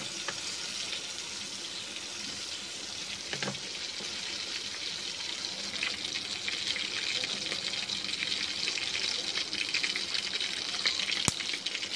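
Battered frog legs frying slowly in oil in a pan over a low flame: a steady sizzle with scattered crackles, and one sharp pop a little before the end.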